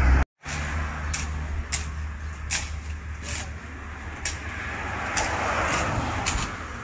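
Outdoor roadside ambience: a steady low rumble with short, faint high clicks recurring about every second. A rushing noise swells and fades between about five and six and a half seconds in.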